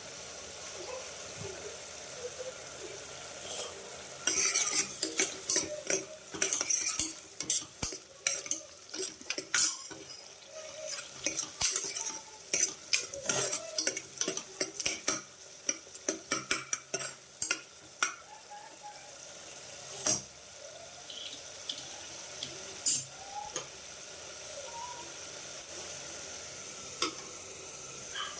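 Metal spoon stirring and clinking against a cooking pan over steady sizzling. Rapid clinks come thick for about a quarter of a minute, then thin out to occasional taps.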